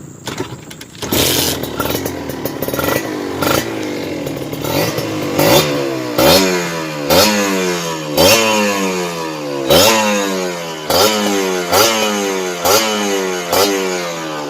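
Kawasaki Ninja RR's single-cylinder two-stroke engine being blipped, its throttle snapped open about once a second from midway on. Each rev rises sharply and then dies away.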